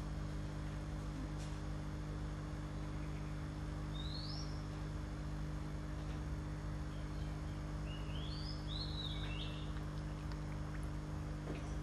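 Short rising bird chirps over a steady low hum: one chirp about four seconds in, then a quick run of four or so chirps near the end.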